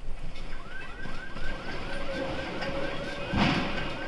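Electronic alarm sounding rapidly repeated rising chirps, starting about half a second in, typical of alarms set off by earthquake shaking. About three and a half seconds in there is a brief, loud rumbling burst.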